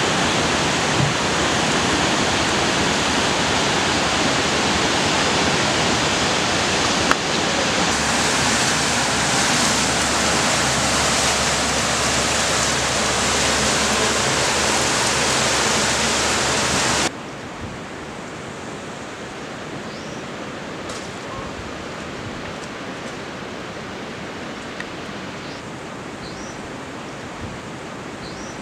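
Swollen, muddy river rushing past in flood, a loud, steady noise of water. About 17 seconds in it cuts off abruptly to a much quieter, even hiss with a few faint short chirps.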